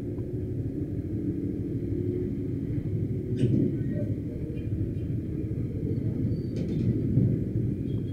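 Motorcycle on the move: a steady low rumble of engine and road noise, with a couple of brief clicks.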